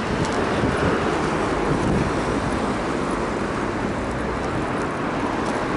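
Steady, even rumble of a moving road vehicle, heaviest in the low end.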